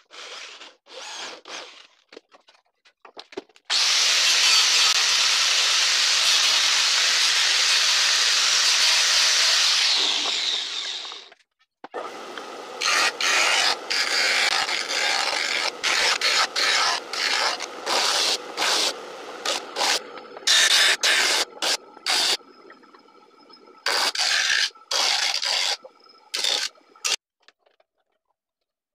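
Bench disc sander running, a small wooden piece pressed against the disc again and again, each contact a loud rasping burst over the motor's faint whine. Before it, an electric drill drives screws in short bursts, followed by about seven seconds of steady loud power-tool noise.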